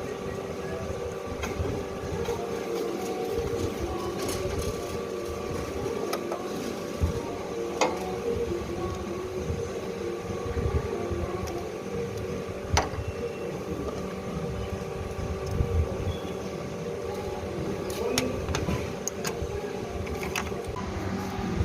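Semi-automatic strapping machine running with a steady motor hum, and sharp clicks here and there.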